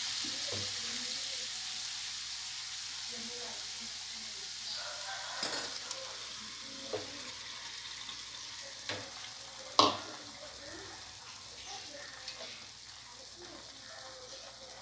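Masala-coated chicken sizzling in a steel kadai as ground green paste is added; the sizzle is a steady hiss that slowly fades. A few sharp clinks of metal utensils on the pan sound over it, and the loudest comes about ten seconds in.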